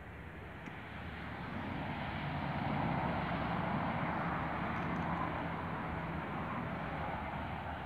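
A passing motor vehicle: a low engine hum with a rushing noise that swells to its loudest about three seconds in, then slowly fades.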